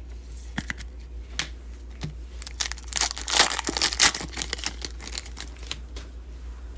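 A trading card pack's wrapper being torn open and crinkled: a few light crackles, then a dense crackling tear about three seconds in, then more scattered crinkles. A steady low hum runs underneath.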